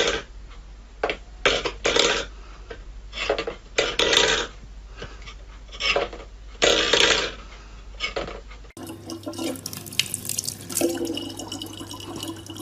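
Stainless steel bowl scraped and knocked on a wooden floor as a cat paws it, in a string of short scrapes and clicks. About nine seconds in, this gives way to a faucet running a thin stream of water into a plastic bottle.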